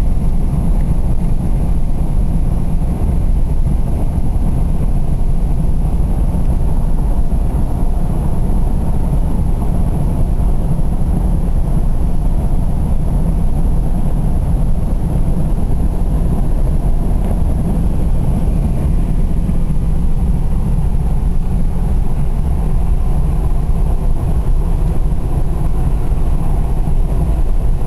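Steady low rumble of a car driving at highway speed, road and engine noise heard from inside the cabin.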